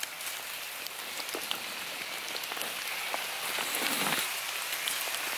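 Rain falling on grass and leaves: an even hiss with scattered ticks of single drops.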